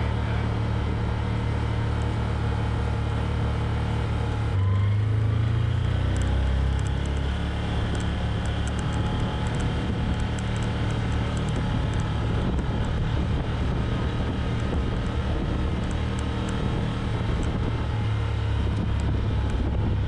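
Can-Am Commander side-by-side UTV engine running steadily as it drives along at low speed. The engine note picks up about four and a half seconds in, with light rattles over it.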